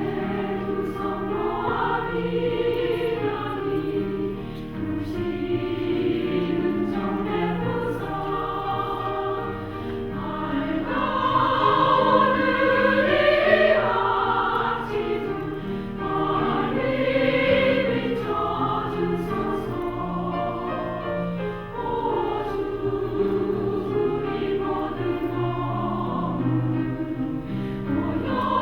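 Women's choir singing a sacred choral piece in several parts, with long held notes; it swells louder about halfway through.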